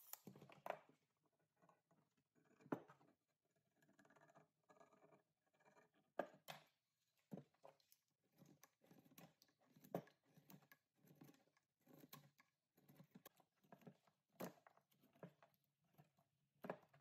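A steel hand blade scraping and shaving a wooden hammer handle in short, irregular strokes, faint, with sharper clicks now and then.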